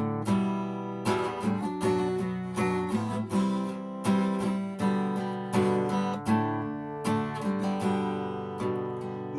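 Acoustic guitar playing an instrumental intro: chords strummed and left to ring, with a new stroke every half second to a second.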